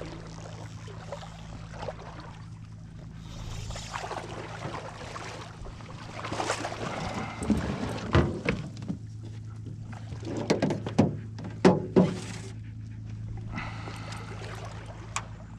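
Water splashing in the shallows as a hooked pink salmon thrashes on the line, in a run of sharp irregular splashes from about halfway through, over a steady low hum.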